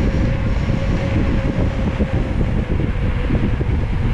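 Wind buffeting the microphone of a camera riding along on a bicycle, with rolling road noise: a loud, steady low rumble.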